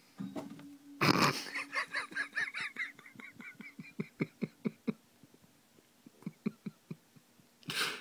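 A sudden loud burst about a second in, as the hamster drops from the cage roof, then a person laughing in short repeated bursts, about four or five a second, that trail off, with a second, shorter fit of laughter later and another brief loud burst near the end.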